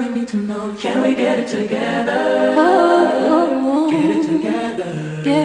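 Background music with singing voices.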